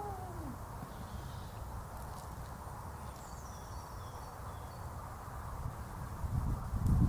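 Steady low rumble of wind on the microphone, with faint bird calls over it and a louder surge of rumble near the end.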